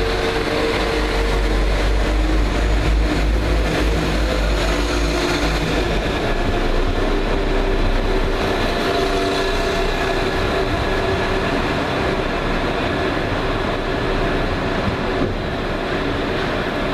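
London Midland Class 172 Turbostar diesel multiple unit pulling away under power. Its underfloor diesel engines give a low rumble and hum that eases after about six seconds, and the wheels and rails rumble on as the train draws away.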